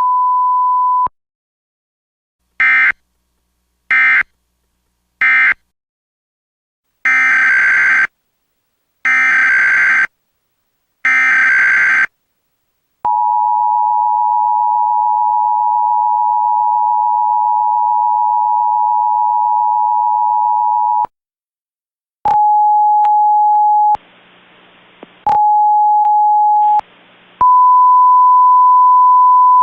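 Emergency Alert System tones. A steady beep ends about a second in. Then come three short digital data chirps and three longer data bursts (the SAME header), followed by the two-tone attention signal, held for about eight seconds. Near the end a single lower tone sounds twice, each time broken off by a burst of hiss, and then a steady higher beep.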